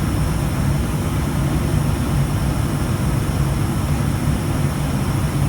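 ATR 72 turboprop engines and propellers droning steadily, with a constant low hum over airflow noise, as the aircraft descends on approach to land.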